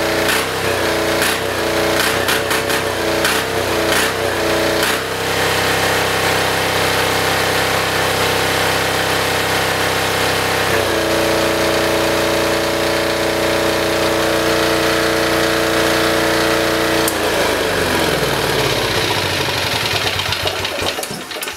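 Military diesel generator running without its spark arrestor, a steady diesel clatter with a few clicks in the first seconds and the engine note shifting twice. Near the end it shuts down, the pitch falling as the engine winds to a stop.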